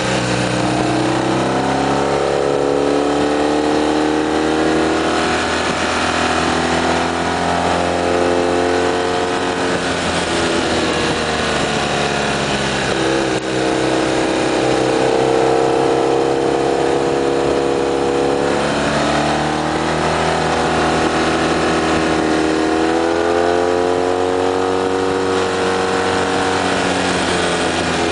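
Motorcycle engine running at road speed through a run of curves. Its pitch falls and climbs again several times as the throttle is rolled off and back on, over a steady rush of wind on the microphone.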